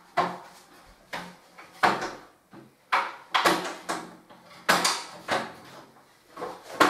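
Knocks and clunks of a scaffold plank being lifted and set down on a work platform, about eight separate hits with a short ringing after each.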